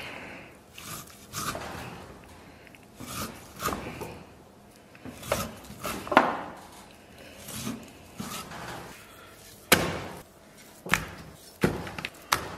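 Chinese cleaver cutting through pork belly and knocking against a thick wooden chopping block, in irregular strokes with a few sharper, louder knocks near the end.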